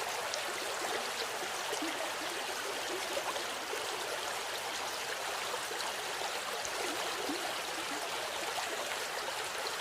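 River water flowing steadily, a continuous rushing with small gurgles and splashes.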